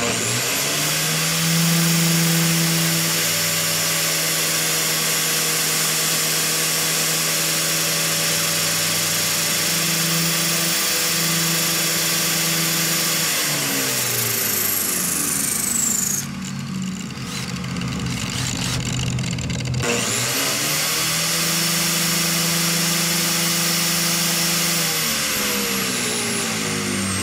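Corded angle grinder with a flap disc running at speed, a cordless drill spinning a Muzzy bowfishing arrow tip against the disc to grind a new point. The grinder spins up at the start, coasts down about halfway through with a rougher, noisier sound for a few seconds, then starts again and coasts down near the end.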